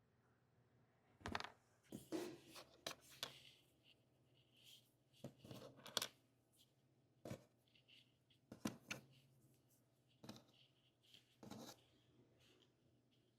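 Faint handling sounds: scattered clicks, taps and short rustles of small craft items and their packaging being handled by hand.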